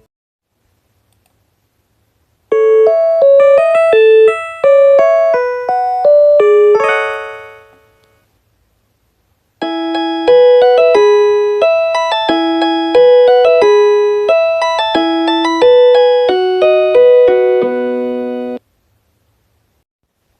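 Two recreated train on-board announcement chime melodies in an electric-piano-like keyboard tone: a short tune starting about two and a half seconds in that rings out and fades, then a longer tune starting near ten seconds that cuts off suddenly.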